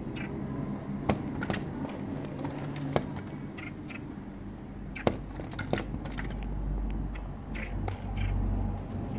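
Small bird chirping, short high notes in pairs every few seconds, with a few sharp clicks or taps and a low rumble in the second half.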